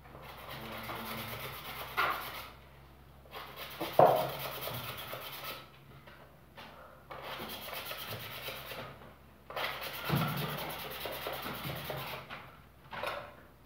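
Hand plastering work: stretches of scraping and rubbing that stop and start, with a sharp knock about four seconds in and a smaller one about two seconds in.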